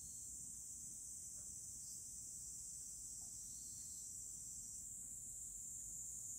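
Faint, steady high-pitched insect chirring that runs on without a break.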